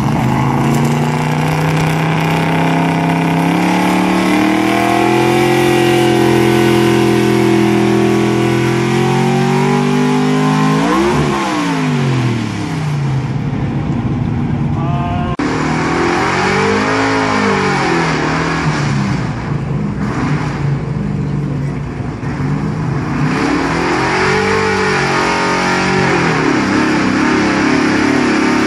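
Pickup truck engine at full throttle, pulling a weight-transfer sled down a dirt track. The revs climb steadily for about ten seconds, then drop and rise again several times.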